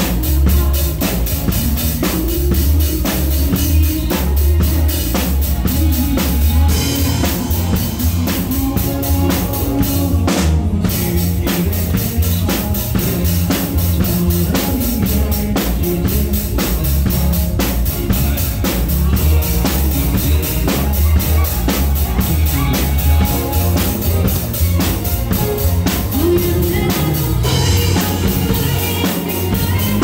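TAMA drum kit played along to a recorded backing track: a steady beat of kick drum, snare and cymbal hits over the track's bass and melody.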